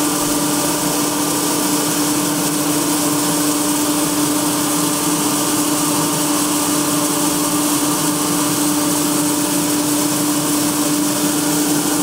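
Grain harvesting machine running steadily with a constant hum, threshed grain pouring from its chute into the grain bin with a dry, even hiss.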